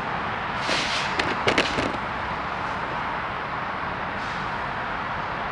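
Steady hiss of background noise, with a quick cluster of sharp clicks about a second and a half in.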